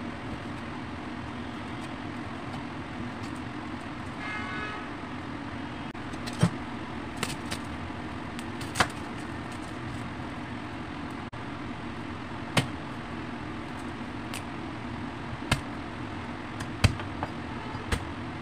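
Chef's knife striking a wooden cutting board in sharp, irregular knocks, from about six seconds in, as chicken and garlic cloves are cut. A steady low hum runs underneath.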